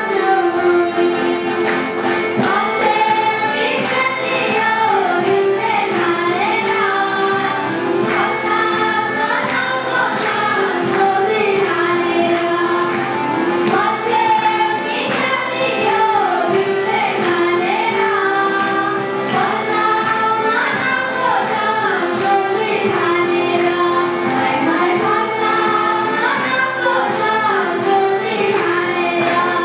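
Schoolgirls singing a Nepali Lok Dohori folk song together into a microphone, over a steady held note and a regular beat.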